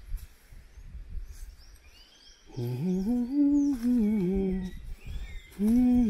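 A man humming a tune with his mouth closed, starting about two and a half seconds in. The pitch steps up and down, and he breaks off briefly before starting again near the end.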